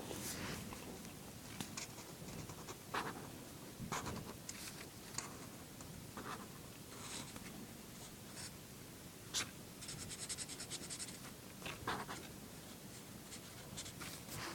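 A drawing tool scratching on paper in irregular short strokes, with a quick run of fine, rapid strokes about ten seconds in.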